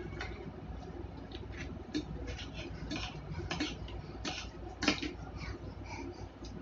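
Eating sounds: irregular small clicks and smacks of chewing, with a spoon and fork clicking against a plate, one sharper click about five seconds in, over a low steady hum.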